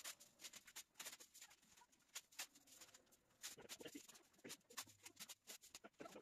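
Faint rustling and scattered crackles of laminate underlay sheets being pressed down and taped at the wall on a concrete floor.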